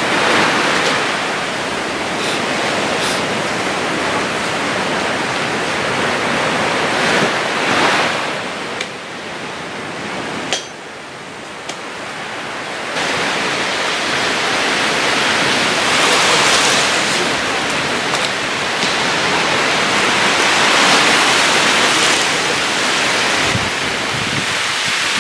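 Water rushing and sloshing around a camera held just below the surface: a loud, steady wash that swells and eases, dropping quieter for a couple of seconds near the middle.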